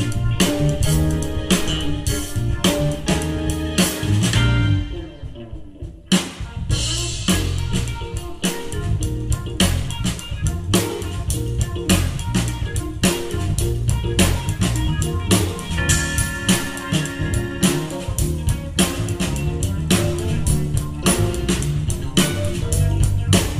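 Live instrumental funk played by a band of electric guitar, electric bass, keyboards and drum kit, with a steady drum beat. About five seconds in the band briefly drops out, then comes back in together a second or so later.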